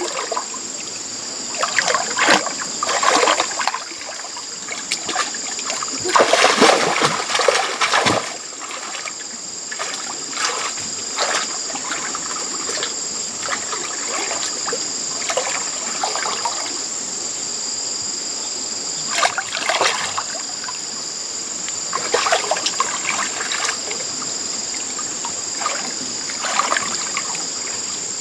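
Shallow muddy water splashing and sloshing in irregular bursts as hands grope through it for fish, the loudest stretch about six to eight seconds in, over a steady trickle of water.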